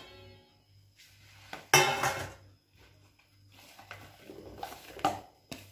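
A stainless steel plate clattering on a kitchen counter: a ring fading away at the start, one loud clatter about two seconds in, then smaller knocks near the end as pieces of masala-coated brinjal are tipped onto it.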